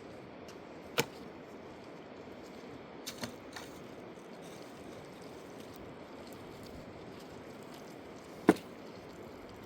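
Two sharp knocks, one about a second in and a louder one near the end, with a few fainter clicks between them, over a steady rushing of flowing water.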